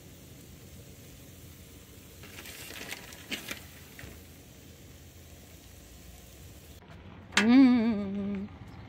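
Faint steady sizzle of chorizo and eggs cooking on a Blackstone flat-top griddle, with a brief rustle as shredded cheese is sprinkled over them. About three-quarters of the way in, a person's voice gives a drawn-out, wavering hum for about a second, the loudest sound.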